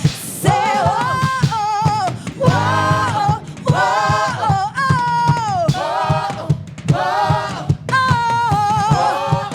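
Gospel worship song: sung vocals in phrases of about a second each, over a steady low beat.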